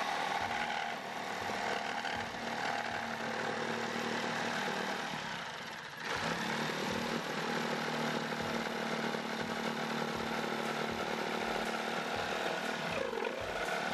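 Corded Hyper Tough jigsaw running, its reciprocating blade cutting a curve through a pine board. The buzz is steady, with a brief dip about six seconds in before it picks up again.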